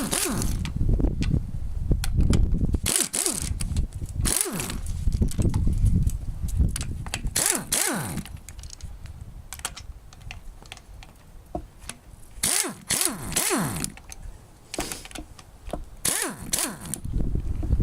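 Socket ratchet clicking in several bursts as cylinder head bolts are backed out of a Honda D16Y8 engine, with metal scraping between the bursts.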